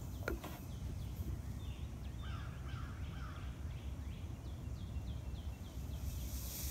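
Birds calling over and over in the background, short chirps with a cluster of lower calls about two seconds in, over a steady low rumble of wind on the microphone. Near the end a hiss begins to build as the vinegar starts to fizz.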